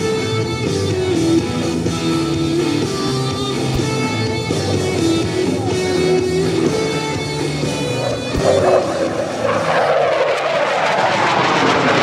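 Guitar rock music playing, and from about eight seconds in the jet noise of a Lockheed Martin T-50A trainer on a high-speed low pass grows loud, sweeping in pitch as the jet closes in.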